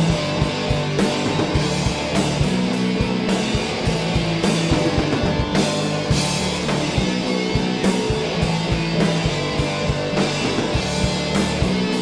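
Rock band playing live without vocals: two electric guitars, bass guitar and drum kit, with a steady, regular drum beat.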